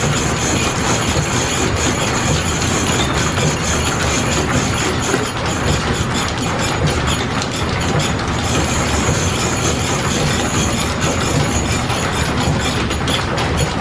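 Belt-driven horizontal milling machine running, its slitting saw cutting the split in a piston ring. It is a steady mechanical noise with a fast, irregular clatter from the flat leather belting and line-shaft drive.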